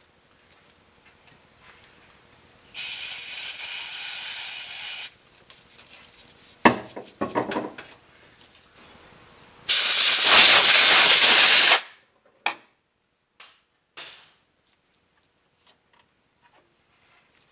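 Aerosol flux remover spraying onto a freshly soldered wire splice to clean off the flux, in two bursts: one lasting about two seconds starting about three seconds in, and a louder one of about two seconds starting about ten seconds in. A few clicks and rattles come between the bursts and after them.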